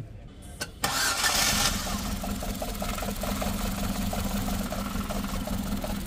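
Ford Figo's 1.2-litre petrol four-cylinder engine cranked and catching about a second in, then settling into a steady idle. The engine has a misfire in one cylinder that is being traced by unplugging cylinders one at a time.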